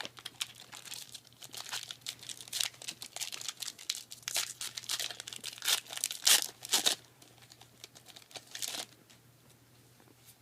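Yu-Gi-Oh booster pack's foil wrapper being crinkled and torn open by hand, with irregular rustling that is loudest about six to seven seconds in and stops about a second before the end.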